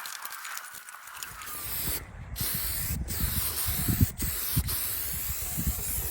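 Paint being sprayed onto prepped metal: a steady hiss of spray, cut by short breaks about two, three and four seconds in, with a few low knocks of handling near the middle.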